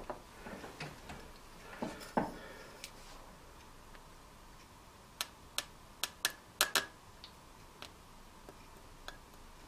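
Scattered small metallic clicks and taps from handling a model steam engine's brass inline oiler while it is filled with steam oil, with a quick run of ticks around the middle.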